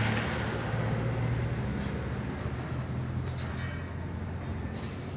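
An engine running steadily with a low hum that slowly fades, with a few faint short hisses or clicks over it.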